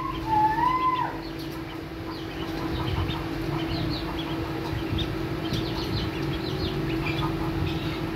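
Ducklings peeping, with many short high cheeps over a steady low hum. About half a second in, a chicken gives one longer call that rises and falls.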